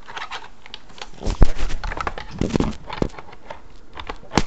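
Plastic clicks, knocks and scraping as a keyboard's modular numpad is slid and fitted onto the side of the keyboard, with a loud knock about a second and a half in and a sharp click near the end.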